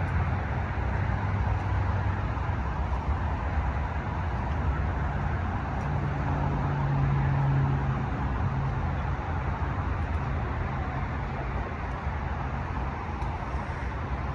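Steady low rumble of a running vehicle engine, with a hum that swells about six seconds in and eases off by about eight.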